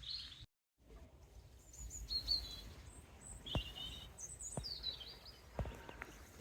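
Small birds chirping faintly, with a few soft knocks about a second apart.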